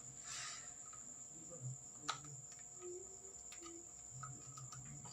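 Faint, steady high-pitched whine or trill, with a few faint clicks.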